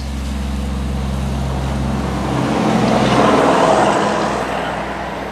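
A road vehicle passing by: its noise swells to a peak about three seconds in and then fades, over a steady low hum.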